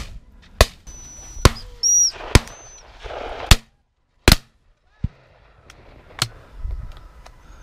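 Shotgun shots at flushed partridges, about eight in under seven seconds, some sharp and close, others fainter and farther off. There is a short high whistle about two seconds in, and a moment of dead silence around the middle.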